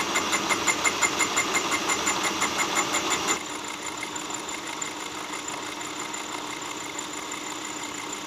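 Milling machine fly cutting cast iron with a single-insert fly cutter: the insert's interrupted cut gives a rapid, even ticking over the mill's running hum. About three and a half seconds in, the ticking drops away and a quieter steady hum with a held whine remains.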